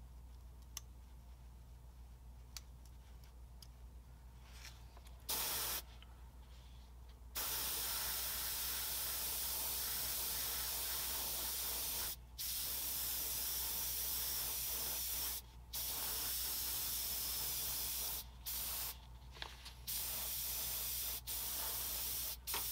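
Gravity-feed airbrush spraying thinned white paint onto a model, a long steady hiss. A short burst comes about five seconds in, then the hiss runs on from about seven seconds, broken by several brief pauses.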